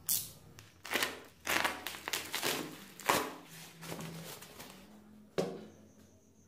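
Plastic courier parcel being cut and torn open with a box cutter, and a boxed phone pulled out of its foam sheet wrapping: a run of irregular crinkling and tearing rustles, the last of them about five seconds in.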